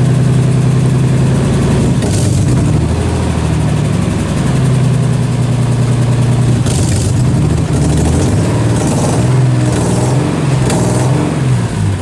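Nissan 300ZX's V6 engine running with a misfire, steady at first and then revved up and down repeatedly from about two seconds in.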